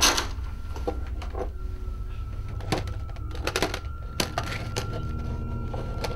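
Scattered knocks and clicks over a steady low hum, with a faint high steady tone through most of it; a sharp knock right at the start is the loudest.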